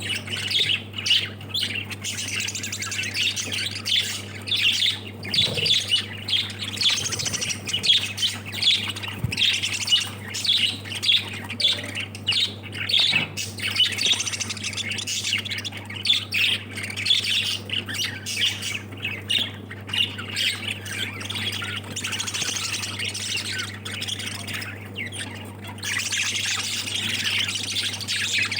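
A flock of small parrots, lovebirds and budgerigars, chattering and squawking continuously with many overlapping calls. A steady low hum runs underneath.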